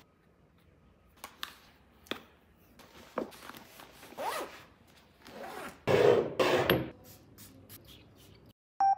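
Zipper on a fabric backpack being pulled, with a few small clicks and rustles of handling; the loudest zipping comes about six seconds in.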